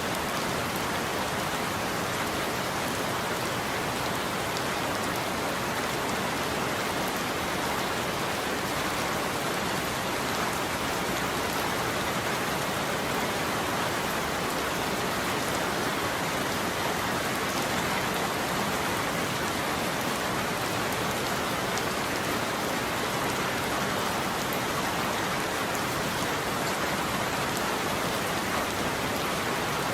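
Steady rain falling on a surface, an even hiss of many drops without let-up.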